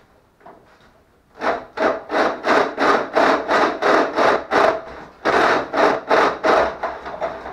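Tool scraping back and forth against the metal inside a Honda CBR1000RR's stock exhaust silencer, about three strokes a second, with a short pause about two-thirds of the way through, as its internal baffle is bored out.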